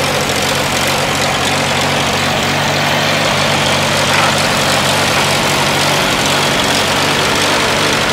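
Farmall A tractor's four-cylinder gasoline engine idling steadily, with an even, unchanging engine note.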